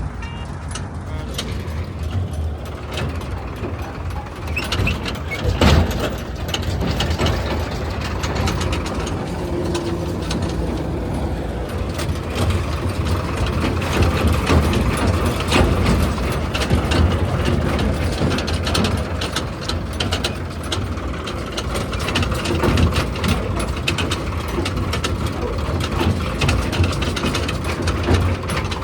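JCB 3DX backhoe loader working, its diesel engine running steadily under frequent clanks and knocks from the machine and the loading, with one loud thump about six seconds in.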